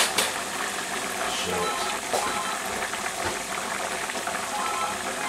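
Melted margarine sizzling in a hot saucepan with a heap of flour just added, as a roux starts to cook, with a couple of light knocks.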